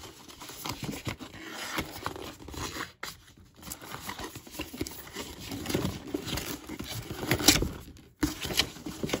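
Cardboard box being handled and pried open by hand: rustling, scraping and tearing of the cardboard flaps and tape seal, with scattered clicks and a sharp click late on.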